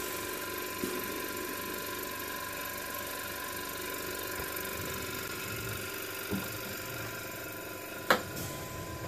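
Respironics Millennium oxygen concentrator's air compressor running with the housing open: a steady mechanical hum with constant tones. A sharp knock comes about eight seconds in, as the plastic cover is put back on.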